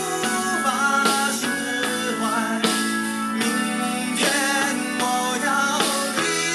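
A pop song with a man singing over guitar accompaniment, played back through a Dolby equalizer custom setting tuned to sound like a live concert.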